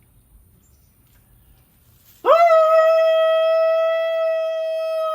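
A man's cattle call: one long, high holler that slides up at its start and is held at a steady pitch, beginning about two seconds in.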